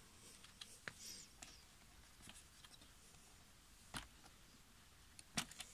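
Faint, scattered clicks and taps of hands working on the opened Reloop Mixage CE's plastic case and circuit board, the loudest about four seconds in and a quick few near the end.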